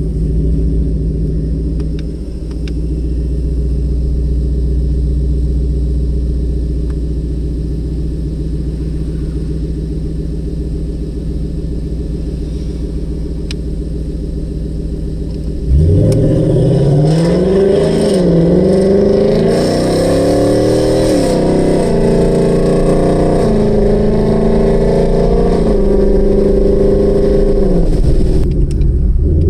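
2018 Ford Mustang GT's 5.0 L Coyote V8 through a free-flowing exhaust with Borla S-Type axle-back mufflers: a steady low drone at first, then about sixteen seconds in a sudden hard acceleration, the exhaust note climbing in pitch and dropping back at several gear changes.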